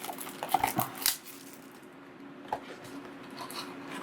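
Card packaging being handled as a trading-card mini box is opened: a few short rustles and taps in the first second, then quieter, with scattered small clicks later, over a faint steady hum.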